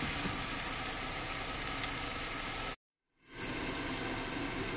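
Chicken and vegetables sizzling steadily in oil in a covered pan on high heat. About three seconds in, the sound cuts out completely for about half a second at an edit, then comes back.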